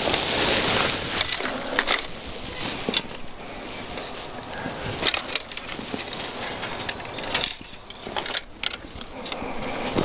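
Scattered clicks, clinks and scrapes of fishing rods and tackle being handled on rocks, with boots shifting on the stones.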